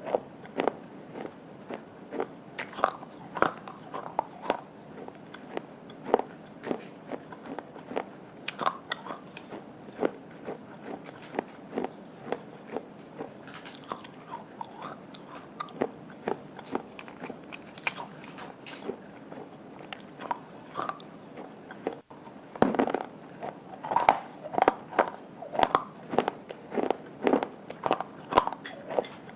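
A person biting and chewing hard dry clay close to the microphone: irregular crisp crunches and crackles, thicker and louder in the last few seconds.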